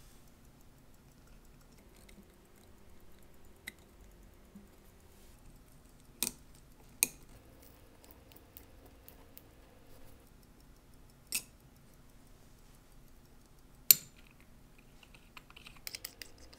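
Sharp metallic clicks as parts of a Seiko 6309-7290 diver's watch are handled and fitted into its steel case: four separate clicks spread apart, the one about two-thirds of the way through the loudest, then a quick cluster of small clicks near the end as the case back is seated.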